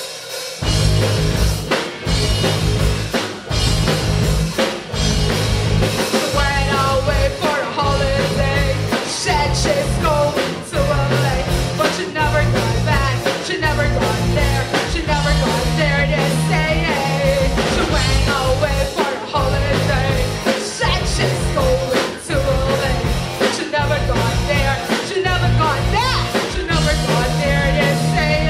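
A live rock band playing: drum kit and electric guitars, with a woman singing lead through a microphone. The band comes in sharply about half a second in, and the singing joins a few seconds later.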